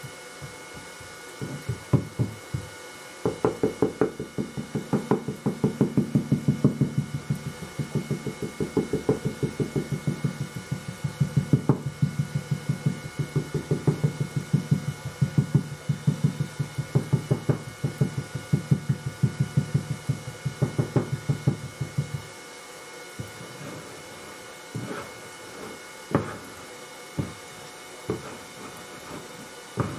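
Wooden rammer pounding green sand into a molding flask: a rapid, steady series of dull thuds that stops about two-thirds of the way through, followed by a few scattered knocks.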